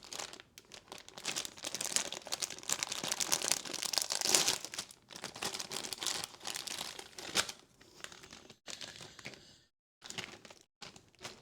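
Packaging being crinkled and torn open by hand, a dense run of quick crackles and rips, as a Labubu blind box is unboxed. The sound cuts out abruptly twice near the end.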